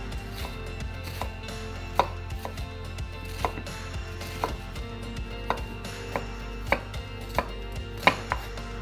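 Kitchen knife chopping an onion on a wooden cutting board to mince it: irregular knife strikes on the board, one or two a second, some sharper than others.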